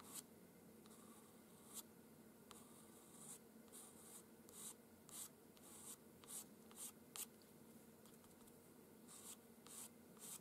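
Pastel pencil scratching across textured pastel paper in short, separate flicking strokes that lay in single hairs of fur, faint and irregular, about one or two a second, with a pause of a couple of seconds about two-thirds of the way through.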